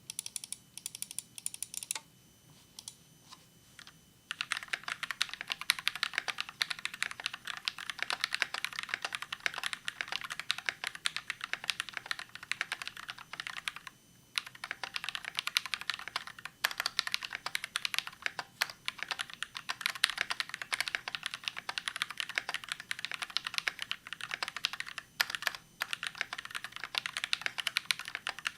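Typing on a custom mechanical keyboard: a KBD67 mkii aluminium case with brass plate, NovelKeys Cream linear switches and PBT keycaps. A few scattered keystrokes first, then steady fast typing from about four seconds in, with short pauses about halfway and near the end.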